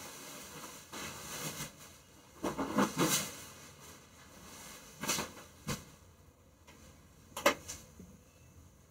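A small knife scraping the blackened skin off roasted garlic cloves on a wooden cutting board, in several short scrapes. A sharper knock near the end is the loudest sound.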